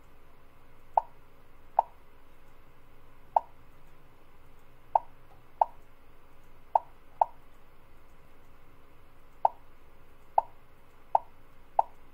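Eleven short, high beeps at irregular intervals, roughly a second apart, as the FaroArm portable coordinate measuring arm registers each probe point taken with its green button.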